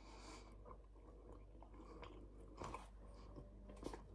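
Faint chewing of a mouthful of cold macaroni cheese, with a few soft clicks about two-thirds of the way through and again near the end.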